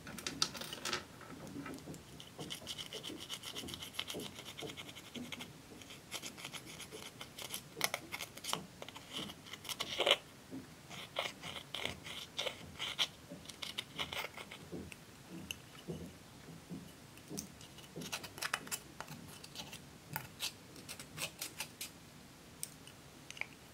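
Small scissors scraping pressed silver eyeshadow out of its plastic palette, breaking it up into powder: bursts of quick scratching strokes with pauses between them.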